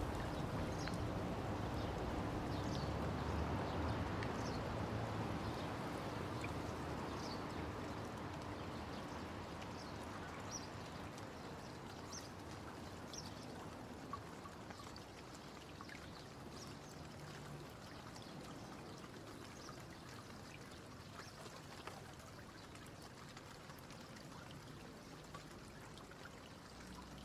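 Rain ambience: a steady wash of falling rain and trickling water with scattered short drips, slowly fading out.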